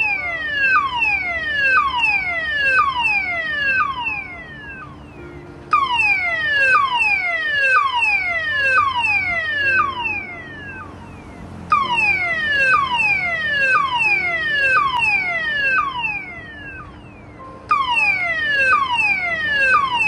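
Electronic warning siren of a lightning alert system's audio-visual alarm unit, sounding through its horn loudspeaker: quick falling sweeps about two a second, in four bursts of about four seconds each, starting every six seconds.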